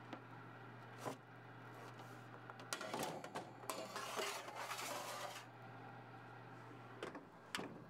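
Metal baking sheet slid onto a wire oven rack: faint scraping of metal on metal for a couple of seconds in the middle, with a few light clicks before and after. A low steady hum runs underneath.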